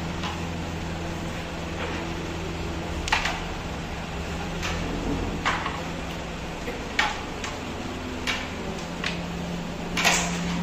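Scattered sharp clicks and taps of a carrom striker and coins on the wooden board as they are handled, about eight in all with the loudest near the end, over a steady low hum.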